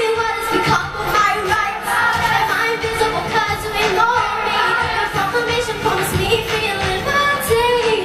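A school show choir singing in unison with instrumental accompaniment.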